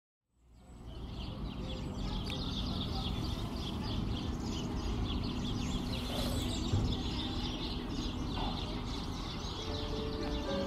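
Many birds chirping densely over a steady rushing noise, fading in about half a second in.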